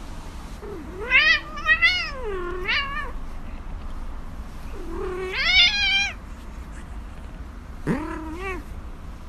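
Grey cat meowing in three drawn-out calls whose pitch wavers up and down. The first lasts about two seconds, and the last is short.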